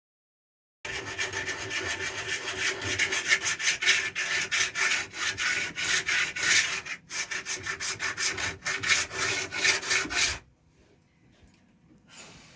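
Hand scraping or sanding: a tool rubbed quickly back and forth over a surface in rapid, even strokes. It starts about a second in and stops abruptly near the end.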